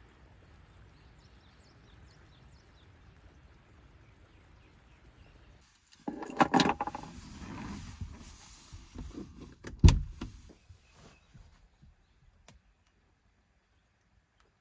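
Faint outdoor background, then rustling and knocking as someone moves about inside a car. About ten seconds in comes a single loud, sharp clunk: the car's sliding side door being unlatched and opened.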